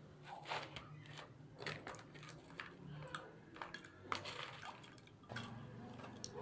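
Ice cubes spooned from a plastic bowl dropping into a glass jug of milk soda: about a dozen short clinks and small splashes, with the metal spoon knocking against the bowl.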